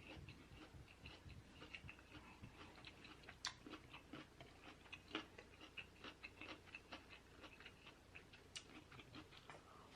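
Faint close-miked chewing of broccoli: a run of small wet mouth clicks and soft crunches a few times a second, one or two slightly sharper.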